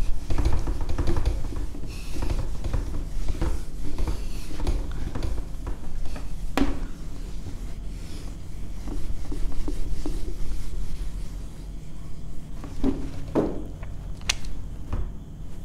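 Whiteboard eraser wiping a whiteboard in repeated rubbing strokes, with a few sharp knocks in the second half.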